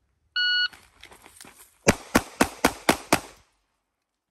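An electronic shot timer gives a short start beep, then an Atlas Gunworks Athena pistol fires a rapid string of shots. The last six shots are the loudest, at about four a second.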